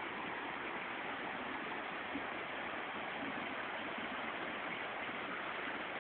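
Waterfall on the Jacaré-Pepira river: water rushing steadily over the falls, an even hiss-like wash with no breaks.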